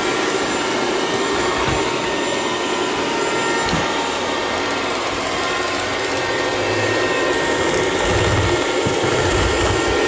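Miele Scout RX2 robot vacuum cleaner running, a steady whirring hiss from its suction fan and brushes, with a few low bumps in the last few seconds.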